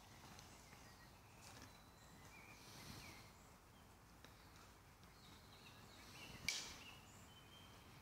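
Near-silent forest ambience with faint, brief bird calls and a soft rustle, broken by one sharp click about six and a half seconds in.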